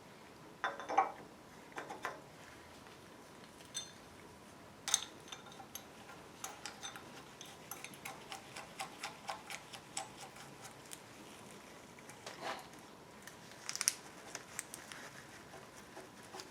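Metal hand tools clicking and tapping on an engine: a few sharp taps, then a run of quick light ticks from about six to eleven seconds in, and a louder click cluster near the end.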